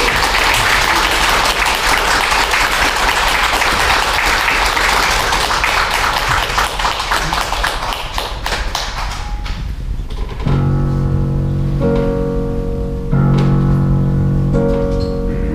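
Audience applauding, thinning out after about nine seconds. About ten seconds in, a digital piano begins a slow introduction of four held chords.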